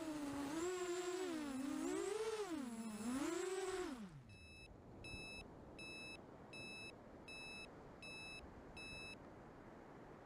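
FPV quadcopter motors whirring, their pitch rising and falling with the throttle before spinning down about four seconds in. Then a run of short, evenly spaced beeps, typical of the quad's beeper or ESCs after the motors stop.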